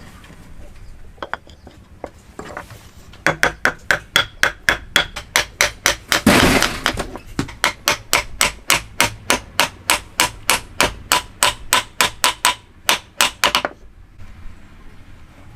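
Woodworking hammer blows on wood, struck fast and evenly at about four a second in a run of about ten seconds that starts about three seconds in. Partway through there is one longer, louder noisy burst.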